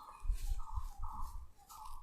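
Hands massaging, with soft low thumps of rubbing and pressing, while a short chirp repeats about twice a second.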